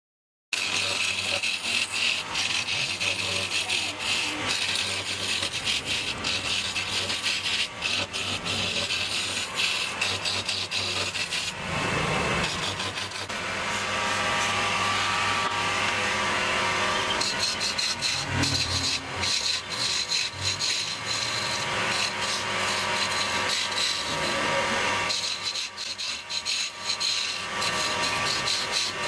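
Wood lathe turning: a hand chisel scraping and cutting into spinning wood, a dense rasping with quick irregular ticks over the lathe motor's steady low hum. The cut changes character about twelve seconds in and again a few seconds later.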